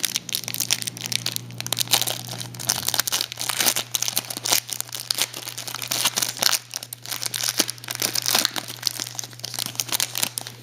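A basketball trading-card pack being torn open, its wrapper crinkling and crackling irregularly as it is handled.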